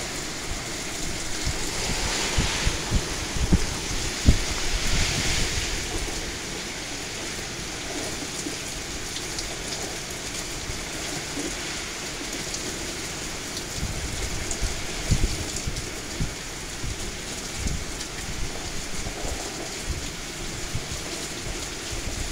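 Hurricane rain pouring down with gusting wind: a steady rushing hiss with low rumbles of wind buffeting the microphone, gusting harder a couple of seconds in.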